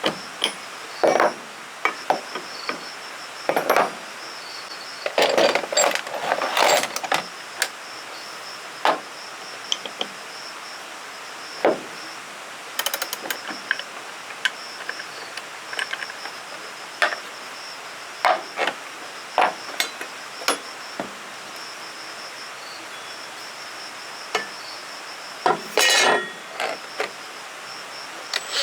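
Insects trilling steadily in a high, slightly pulsing tone, with irregular knocks and clinks of something being handled, heaviest in clusters near the start, about five to seven seconds in, and near the end.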